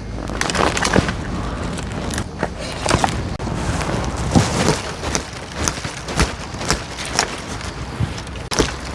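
Irregular knocks, clicks and thuds from a Gardex AXE GX multitool being tried out by hand, several sharp strikes a second at uneven spacing.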